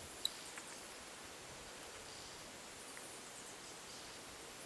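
Quiet spring woodland ambience, a faint steady hiss with a few faint distant high chirps. One short, sharp high-pitched click sounds about a quarter second in.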